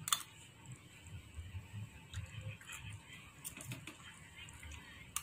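Quiet eating sounds: a metal spoon clicks sharply against a dish just after the start, then scattered faint clicks and soft sounds as the boy spoons up food and eats, with another click near the end.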